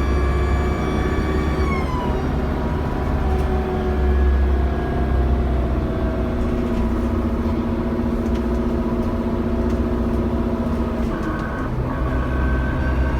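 Dennis Trident double-decker bus's diesel engine and turbocharger heard from the passenger deck: a high-pitched turbo whine that falls in pitch about two seconds in, over a steady low engine rumble. A new whine starts about eleven seconds in and rises near the end.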